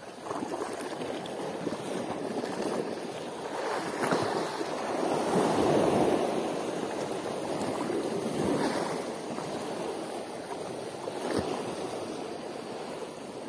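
Sea water washing against the shore, swelling to its loudest about midway and then ebbing, with a few faint clicks.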